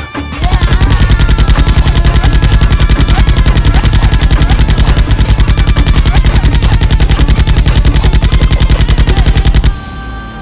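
Machine-gun sound effect: one long, unbroken burst of rapid automatic fire that starts about half a second in and cuts off abruptly near the end.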